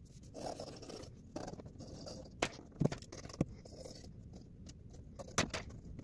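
Pencil strokes on paper, sped up by the time-lapse into quick scratching and pattering, with a few sharp clicks scattered through.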